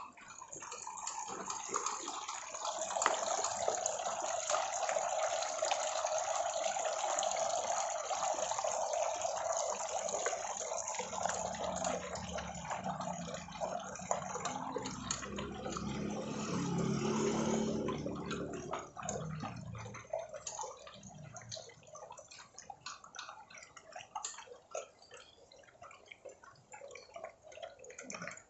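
Several dogs eating wet food from stainless steel bowls: wet chewing and smacking with many small clicks against the bowls. A steady rush of running water fills the first half and fades out after about ten seconds.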